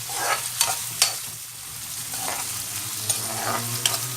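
Onions and green chillies frying in oil in a kadai with a steady sizzle, while a spatula stirs them, scraping and knocking against the pan several times.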